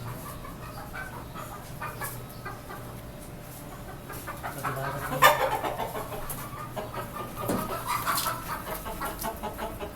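Desi chickens clucking and calling, with several birds calling at once; the calling grows busier and louder about halfway through, with a sharp loud squawk about five seconds in.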